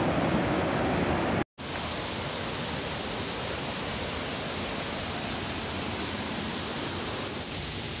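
Canyon creek rushing over boulders in a small cascade, a steady noise of water. About a second and a half in, the sound drops out for a moment and comes back quieter, a gentler flow of water over rocks.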